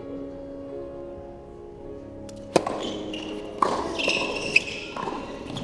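Steady background music, then about two and a half seconds in a tennis ball is struck hard by a racket, followed by two more racket hits about a second apart as the rally gets going.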